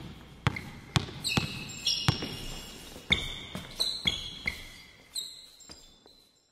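A ball bouncing on a gym floor about twice a second, with sneakers squeaking, echoing in a large open gym. The sounds fade away near the end.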